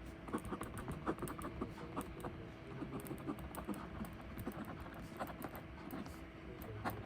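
Typing on a computer keyboard: quick, irregular runs of key clicks over a faint steady hum.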